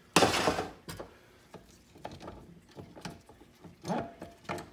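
Metal parts of a 4L60E automatic transmission being handled on a steel workbench: a loud scraping clatter lasting about half a second, then a string of lighter clinks and knocks.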